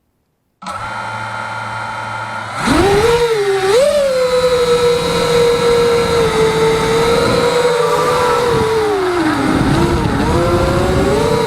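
Brushless motors and propellers of an Eachine Wizard racing quadcopter, fitted with Emax motors: a steady whine sets in about half a second in. At about two and a half seconds they throttle up into a loud whine whose pitch rises, wavers and dips with the throttle.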